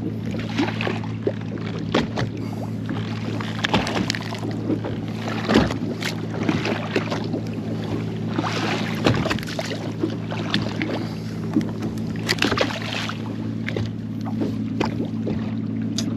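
Sounds on a small fishing boat: a steady low mechanical hum throughout, with water splashing against the hull in a few louder surges and scattered knocks and clatter.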